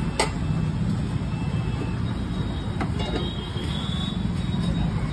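Steady rumble of road traffic passing a roadside stall, with a sharp click about a quarter of a second in.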